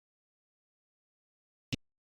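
Dead silence, broken once near the end by a single short, sharp click.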